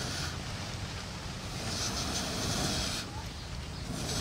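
A person blowing long breaths onto a small wood fire under a clay cooking pot to get it burning, one blow about every two seconds. There is a low steady wind rumble on the microphone.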